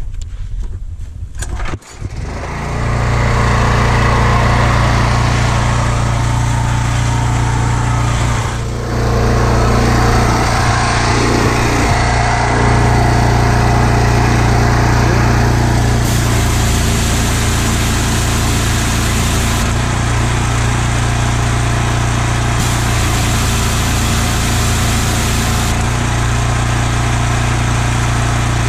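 Predator gas pressure washer's small engine starts about two seconds in and runs steadily under the pump, dipping briefly once. A high water hiss switches on and off several times as the spray gun's trigger is worked, while the external unloader valve dumps bypass water out through the hose.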